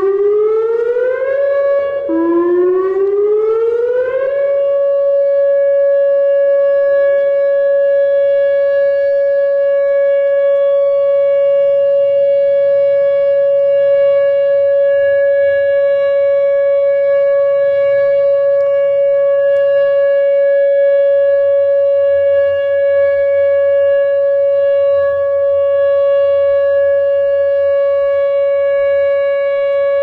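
Whelen WPS-2910 electronic outdoor warning siren sounding its Alert signal on a test. The tone rises in pitch, drops once about two seconds in and climbs again, then holds one loud steady tone from about four seconds in.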